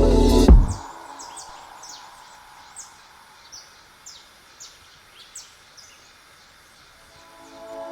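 Music cuts off about half a second in, leaving small birds chirping in short, high, repeated calls over a faint steady hiss. The music fades back in near the end.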